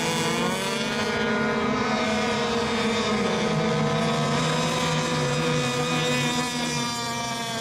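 Several radio-controlled racing boats' small two-stroke engines running together, each at its own pitch, their notes drifting up and down as the boats mill on the course before a race start.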